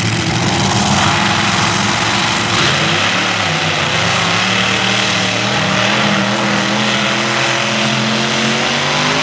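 Supercharged engines of a multi-engine modified pulling tractor running flat out as it drags the weight sled down the track, a loud steady blare whose pitch climbs near the end.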